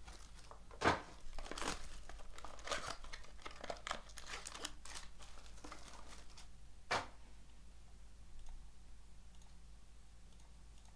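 Plastic wrapping on a trading-card box or pack being torn open and crinkled in short rustling bursts. There are two sharper knocks, about a second in and near seven seconds.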